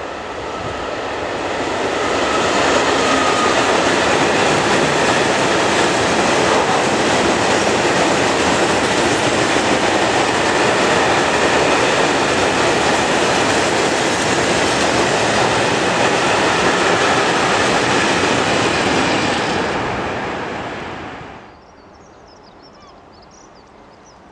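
Freight train passing close by at speed: an Alstom Prima electric locomotive hauling a long rake of flat wagons loaded with steel coils, with a steady, loud rolling and rattling of wheels on rail. It builds over the first two seconds and dies away quickly about 21 seconds in as the last wagon passes.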